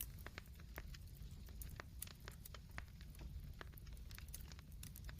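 Campfire crackling: irregular sharp snaps and pops, several a second, over a low steady rumble.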